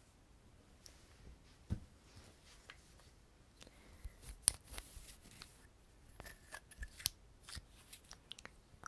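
Plastic makeup containers handled close to the microphone: irregular sharp clicks, taps and short scrapes, busiest in the second half.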